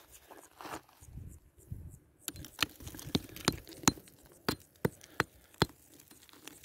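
A geologist's rock hammer tapping grey rock, about nine sharp metallic clinks over three and a half seconds, starting about two seconds in.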